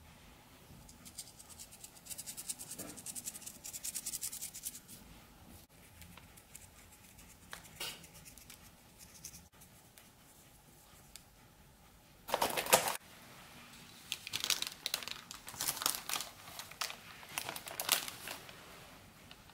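Baking parchment paper crinkling and rustling as it is handled, in short crackly spells, with one louder rustle about two-thirds of the way through.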